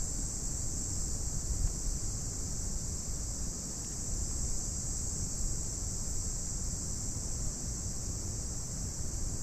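Steady, high-pitched chirring of insects in the grass and trees, with a low wind rumble on the microphone.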